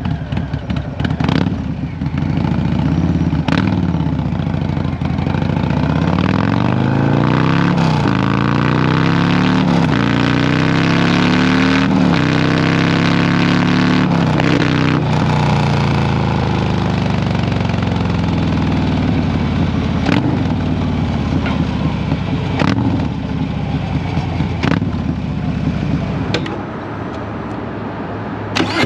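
Harley-Davidson Low Rider ST's Milwaukee-Eight 117 V-twin through an SP Concept big bore exhaust, stage 2 with a Cyclerama 483 cam, heard while riding. The engine pulls up through the gears in quick rising sweeps, each cut off by a shift, then holds a steady cruise and eases off near the end, with a few sharp snaps along the way.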